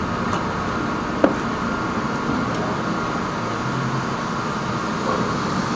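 High-pressure drain jetter running with a steady drone while its hose works in a blocked rainwater drain. One sharp knock sounds about a second in.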